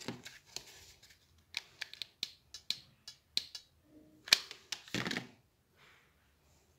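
Clear faceted beads clicking against each other and against a glass bowl as they are picked out by hand: a string of sharp, light clicks, the loudest about four seconds in, with a short clatter of handling about a second later.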